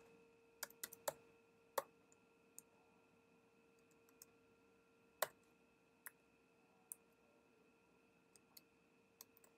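Faint, irregular keystrokes on a computer keyboard: about a dozen separate clicks, the loudest about five seconds in, over a faint steady hum.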